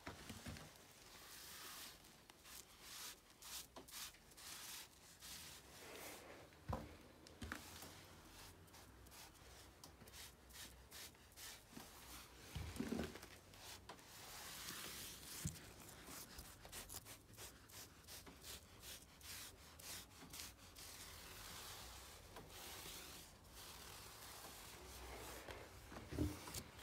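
Faint scratching and rubbing of a red felt-tip marker's nib dragged over a rough textured wall in short and long strokes, with a few knocks along the way.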